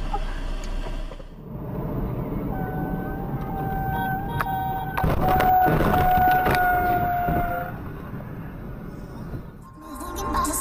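A car horn held for about five seconds over the rush of tyres on a wet road, with a louder burst of noise about halfway through.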